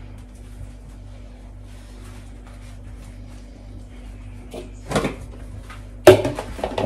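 Kitchen handling sounds: a faint steady hum, then a knock about five seconds in and a loud sharp bang a second later, followed by lighter clatter.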